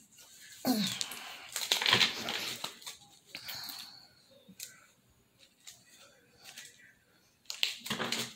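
A homemade deck of cards shuffled by hand: dense rustling and flicking for the first couple of seconds, then scattered light ticks and taps, and another short burst of shuffling near the end.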